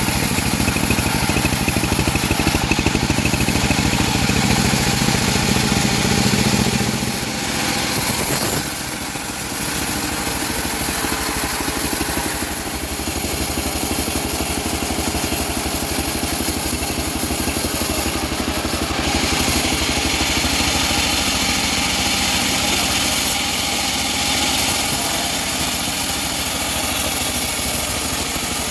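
Homemade engine-driven bandsaw sawmill running steadily while ripping teak logs. Its deep, heavy note drops away about seven seconds in, and a lighter steady machine sound carries on.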